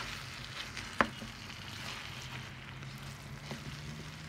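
Kefta (seasoned ground-meat) filling sizzling in a large frying pan while a wooden spatula stirs and scrapes through it, as the juices cook off. There is one sharp knock about a second in.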